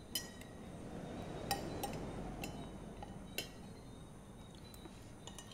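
Spoons and forks clinking against ceramic plates and bowls at a meal: a handful of sharp, separate clinks over a faint background rush.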